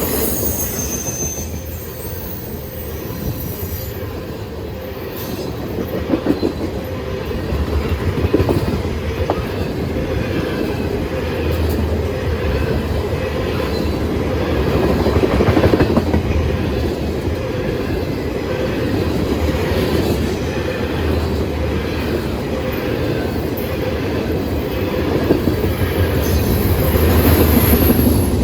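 Freight train rolling past: a steady rumble of cars on the rails with wheel clatter, and brief high-pitched wheel squeals just after the start and again near the end.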